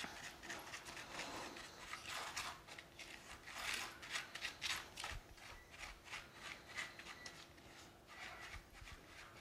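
Silicone spatula stirring dry sugar and cornstarch in a stainless steel saucepan: faint, gritty scraping strokes in quick, irregular succession.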